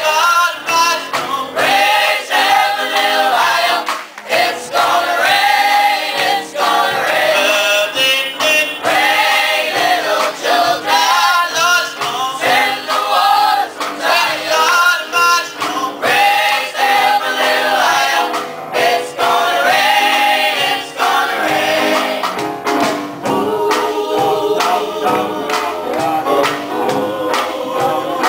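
Boys' choir singing a gospel song in harmony, in continuous phrases.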